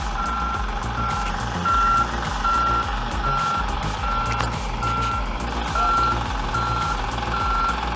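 Vehicle reversing alarm beeping steadily, a little more than once a second, over a low rumble.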